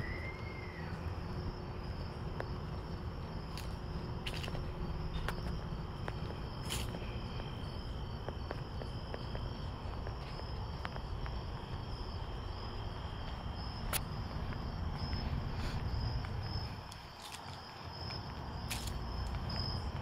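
Crickets chirping steadily over a constant low rumble of outdoor night noise, with a few scattered soft clicks.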